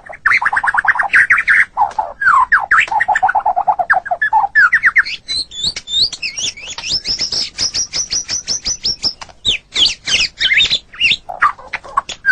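White-rumped shama (murai batu) singing a long, varied song. It opens with fast trills of repeated notes in a middle pitch, switches about five seconds in to a quick run of high, even notes, and ends on a jumble of varied phrases.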